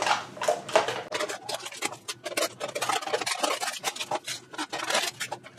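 Knorr Snack Pot instant pasta cups being opened by hand: plastic lids pulled off and the peel-off seals torn back, a run of irregular crinkling, scratching rustles with small clicks.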